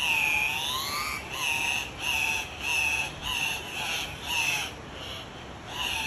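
Male Andean cock-of-the-rock calling: one long call of about a second that rises and falls in pitch, then a run of six shorter calls about two a second, and another call near the end.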